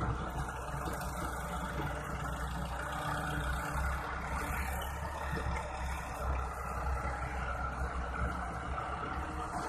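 Massey Ferguson 385 tractors' diesel engines running steadily, a deep continuous engine sound.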